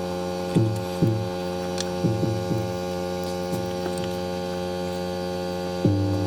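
A steady electrical hum made of several even tones, with short low notes stepping in and out at irregular moments, most densely near the end.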